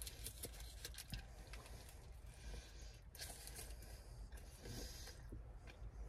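Faint eating sounds: chewing, with scattered small clicks and crinkles from a paper burger wrapper.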